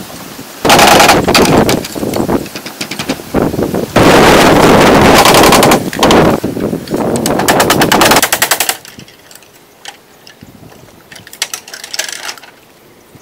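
Loud, rapid clattering and cracking of bamboo being worked, in dense runs of knocks for about eight seconds. After that only a few scattered light knocks remain.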